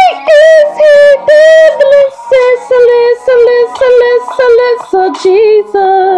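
A high voice singing a slow melody of separate held notes with vibrato, over a quiet accompaniment. It steps down to a lower pitch about five seconds in.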